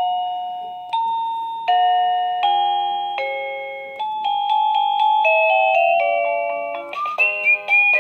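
SmartDude wireless doorbell's plug-in chime unit playing one of its electronic chime melodies, a slow series of bell-like notes that each ring and fade. About seven seconds in it switches to a quicker, different tune as the next chime is selected.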